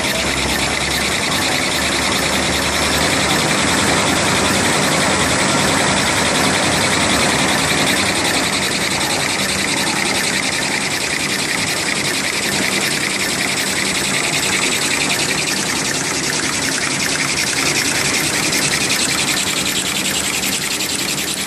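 Two-colour printing kitchen-towel and maxi-roll making machine running: a steady mechanical whirr of rollers, drive motors and paper web feeding through, with a thin high steady whine over it.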